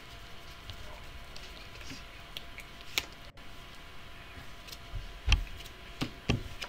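Sleeved Magic: The Gathering cards being shuffled by hand, with soft clicks of the cards, then several dull knocks on the table from about five seconds in as cards are dealt down into piles. A steady low hum lies underneath.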